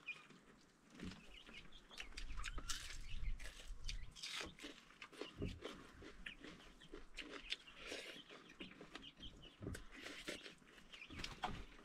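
Close-up eating sounds: irregular wet smacking, chewing and sucking on roasted meat on the bone.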